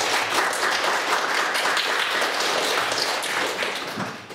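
A small group applauding, dying away about four seconds in.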